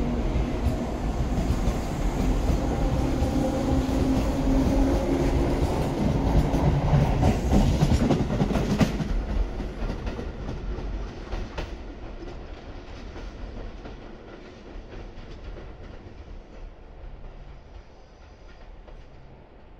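Tobu 8000 series electric train pulling out of the station, its motors humming as it gathers speed past the platform. Wheels clack over rail joints around eight seconds in, then the sound fades steadily as the train runs off into the distance.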